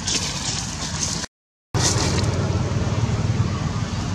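Steady outdoor background noise, a low rumble with hiss, broken by a half-second dropout to silence about a second and a half in.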